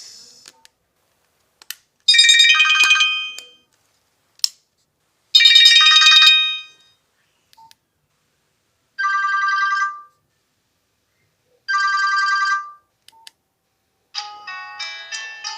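Nokia 1616 phone speaker playing four short electronic tones, each about a second long, with pauses and faint ticks between them. A longer ringtone melody starts near the end.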